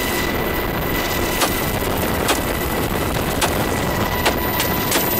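Steady, loud helicopter cabin noise, with about six single shots from an M4-type carbine fired out of the open door, irregularly spaced a second or so apart.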